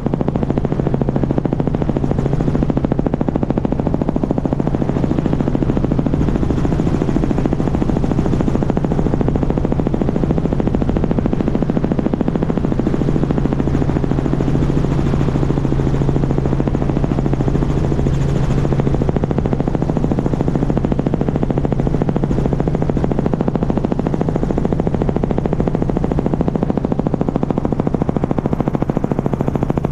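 Small helicopter in steady flight, heard from a camera mounted outside the aircraft: rapid, even rotor blade chop over a constant engine drone and wind rush on the microphone.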